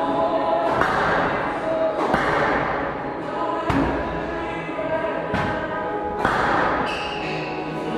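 Squash ball struck by rackets and hitting the court walls: about six sharp smacks, roughly a second apart, as two players rally in a warm-up, with music playing throughout.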